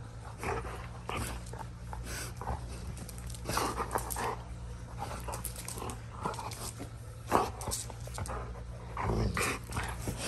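A dog close to the microphone, sniffing and breathing in short irregular bursts, over a steady low hum.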